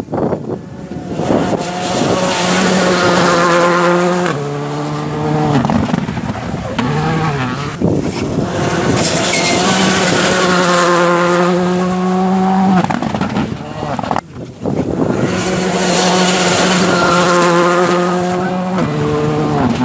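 Rally cars passing at speed on a gravel stage, three in turn, one of them a Škoda Fabia. Each engine holds a steady high-revving note and then drops in pitch as the car goes by or shifts.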